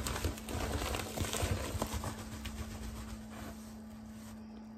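Handling noise from plastic being moved about close to the microphone: a run of light taps, knocks and rustles in the first two to three seconds, fading to quieter handling. A steady low hum sits underneath.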